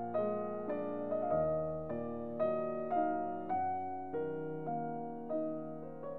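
Background piano music: a slow melody of single struck notes, about two a second, each fading after it is played.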